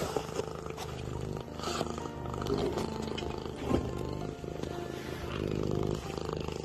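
Domestic cat purring close up, a steady, rapid low rumble, with a few small clicks as the cat and the phone brush together.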